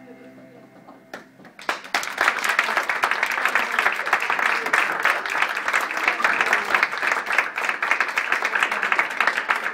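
The last sustained note of the music fades out, then about two seconds in an audience breaks into steady applause.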